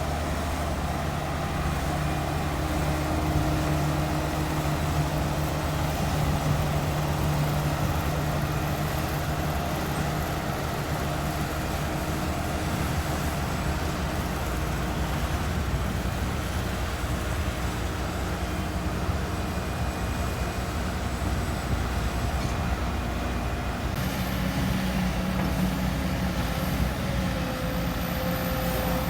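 Bulldozer's diesel engine running steadily, with a change in its engine note near the end.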